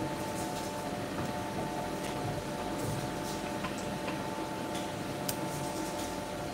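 Light metallic clicks and ticks as a punch former is turned and set by hand, over a steady machine hum with several steady tones.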